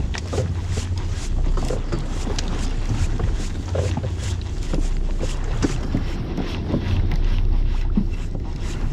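Wind on the microphone over the low steady rumble of the boat, broken by many short scratchy clicks.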